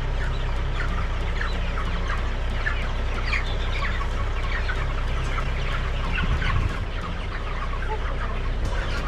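A flock of chickens clucking with many short, scattered calls while they are being chased and herded, over a steady low rumble.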